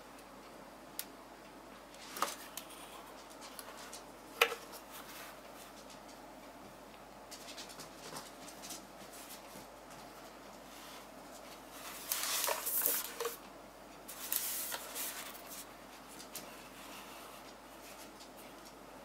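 Rosewill RK-9000 mechanical keyboard with Cherry MX Blue switches being typed on irregularly: a few single key clicks early on, one sharp loud click about four seconds in, then short bursts of quick keystrokes in the second half.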